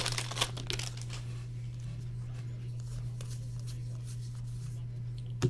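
Faint crinkling and light clicks of trading cards and foil pack wrappers being handled, strongest in the first half second, over a steady low electrical hum.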